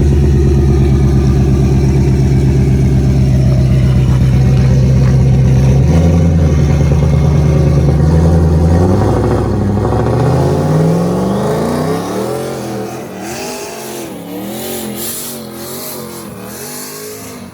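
Car engine running loud and steady close by for about six seconds, then accelerating hard away, its pitch climbing and dipping through the gear changes as it fades into the distance.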